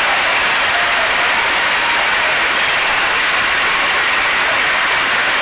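A large crowd applauding steadily, with a few shouts rising out of it.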